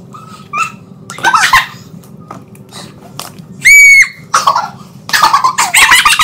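A girl's short, piercing high-pitched shriek a little past halfway, the loudest sound here. Girls laughing and squealing excitedly toward the end, with a few brief vocal sounds earlier.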